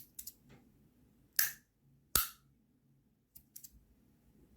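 A Rapt V2 magnetic fidget slider with aluminium 2x3 Strong magnet inserts clicks sharply twice, about three-quarters of a second apart, as it snaps between its two positions. The second click is more of a pop. Lighter ticks of the plates shifting come near the start and about three and a half seconds in.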